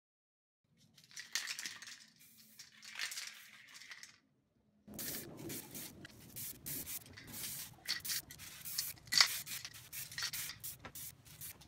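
Aerosol can of DuraCoat firearm coating spraying in short hissing bursts, mixed with handling noise. The sound is fainter at first, stops for a moment about four seconds in, then comes back louder in quick bursts.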